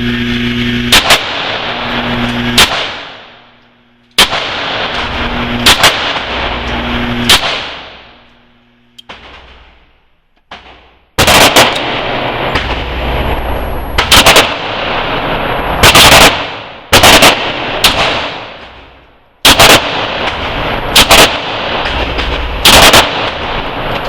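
Handgun shots, about a dozen and a half sharp reports spaced a second or more apart, some in quick pairs. Between them is a loud, steady rushing noise that dies away during a few longer pauses.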